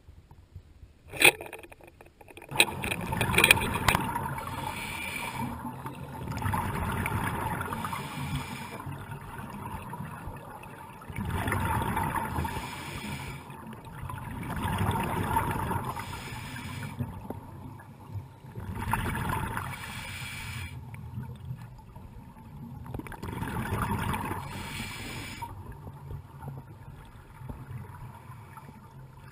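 Scuba diver breathing through a regulator underwater: a rush of exhaled bubbles every three to five seconds, six times, with quieter inhalations between. A sharp knock sounds about a second in.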